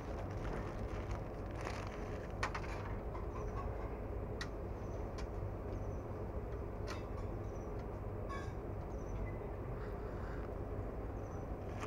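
Steady low rumble of street and traffic background noise, with a few sharp clicks scattered through it.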